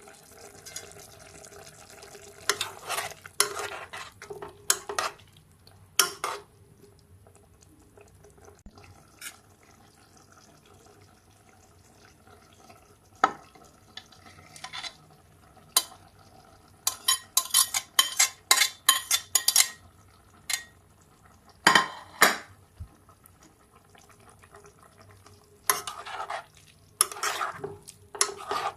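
A utensil stirring and scraping food in a cooking pan, with clinks against the metal, in scattered bursts and a quick run of strokes around the middle.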